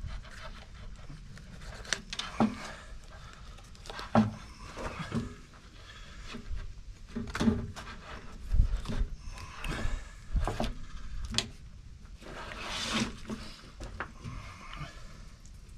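Knife cutting and scraping an armadillo's hide away from its shell, with the carcass shifting and knocking on the board: irregular knocks and clicks with a few short rasping scrapes.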